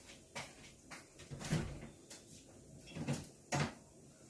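Kitchen handling noises: four knocks and thuds a second or so apart, as things are moved about and set down.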